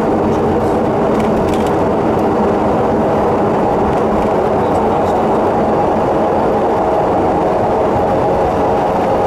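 Aircraft engine and propeller heard from inside the cockpit during the landing: a steady drone with several held tones over a low rumble, unchanging in level.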